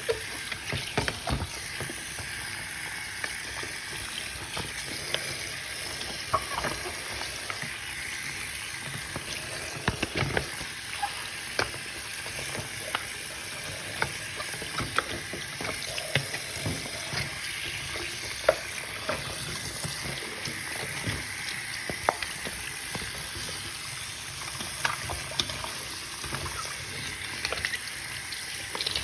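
Tap water running steadily into a sink over fidget toys being rinsed, with small scattered knocks and splashes as they are handled.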